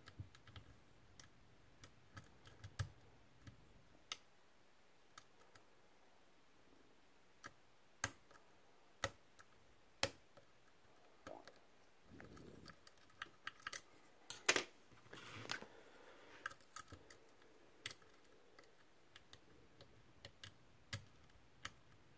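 Faint, irregular metallic clicks and ticks of a lock pick and tension tool working the pins of a Medeco M3 high-security lock cylinder, with a few louder clicks in the middle and brief scraping rustles.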